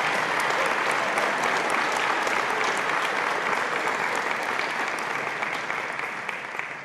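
Applause from a room full of people, a steady dense clatter of clapping that slowly dies away near the end.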